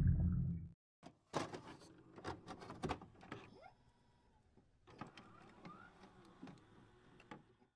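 Deep ambient music fades out within the first second. It is followed by faint, scattered clicks and short whirring sound effects in two clusters, the glitchy sound effect for an animated loading bar.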